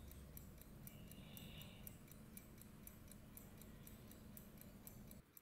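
Near silence, with the faint, quick, even ticking of a mechanical watch.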